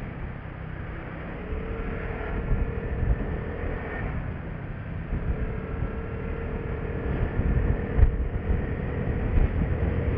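Vespa LX150ie scooter's single-cylinder four-stroke engine running at riding speed, with a steady whine that holds from about a second and a half in, drops out briefly around four seconds, then returns. Under it a constant rough rumble of wind buffeting the microphone.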